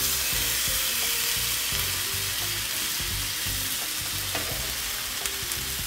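Chapli kababs of spiced minced meat sizzling steadily as they fry on a flat tawa greased with very little oil.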